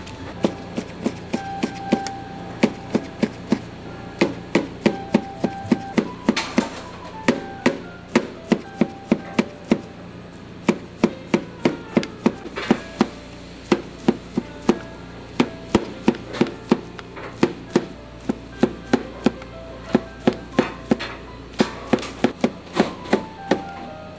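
Kitchen knife chopping a rolled thin egg omelette into fine strips on a plastic cutting board: a steady run of sharp knocks, about three a second.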